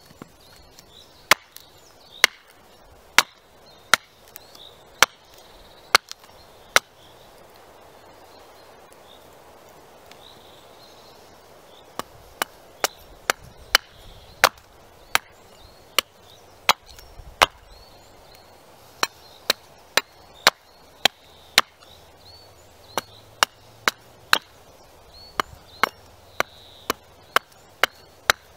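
Small carving axe (a Robin Wood axe) hewing a green-wood spoon blank stood upright on a stump: sharp chops about one a second, a gap of about five seconds, then quicker chops of nearly two a second.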